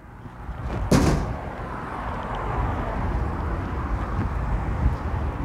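A single sharp knock about a second in, then steady outdoor background noise with a low rumble that slowly grows louder.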